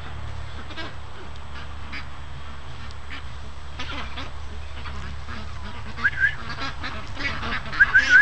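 A flock of domestic ducks calling with short honking calls, a pair about six seconds in and a quick run of four near the end, over footsteps crunching on a gravel driveway.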